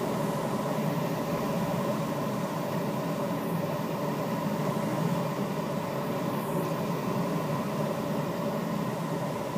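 Steady rush of airflow around the canopy of a Schempp-Hirth Duo Discus two-seat glider, heard inside the cockpit as it comes in low to land.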